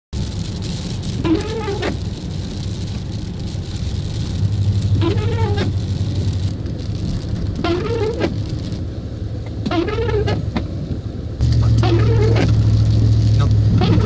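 Windshield wipers squeaking across wet glass every two to three seconds, each sweep a short squeal that rises and falls in pitch. Under it are the car's steady low cabin rumble and rain hissing on the windshield, and the rumble gets louder about eleven seconds in.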